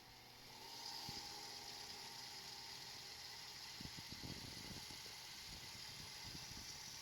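GoldStar R-Q20P VHS recorder's tape mechanism starting up about a second in and then running with a steady whir and hiss. Its rubber drive belt is worn and no longer fully elastic, though it still works.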